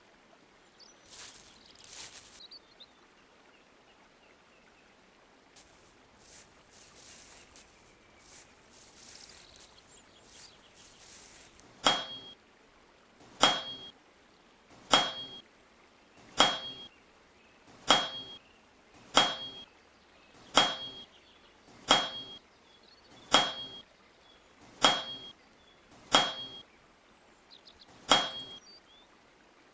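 Faint rustling of footsteps in dry leaves, then, from about twelve seconds in, twelve sharp metallic sword clangs, one every second and a half or so, each with a short high ring: a blade striking again and again.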